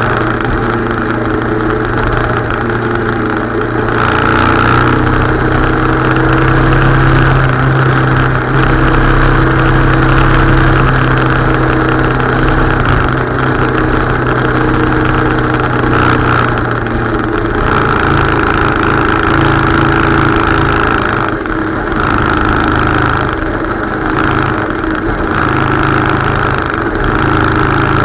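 Motorcycle engine running steadily while riding along a road; its note changes about two-thirds of the way through as the revs shift.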